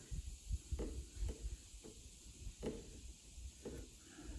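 Faint, irregular soft knocks and rubs of fingers working epoxy putty onto the broken edge of a fiberglass trunk lid, several a second.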